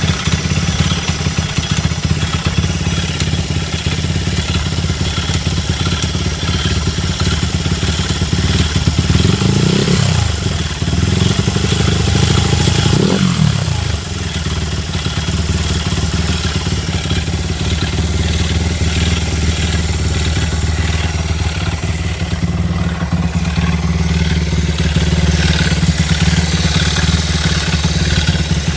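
Honda XR100 motard's single-cylinder four-stroke engine idling with a regular rattling noise, revved briefly twice near the middle. The owner fears the rattle comes from the crankshaft.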